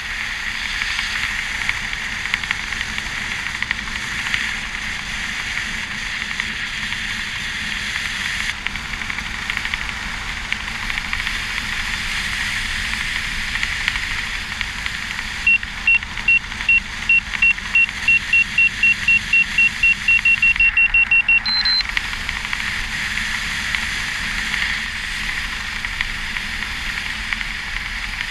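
Steady wind rushing over a GoPro camera high in the air. About midway an electronic beeper sounds a run of short high beeps that come faster and faster for about six seconds, then one short, higher-pitched tone.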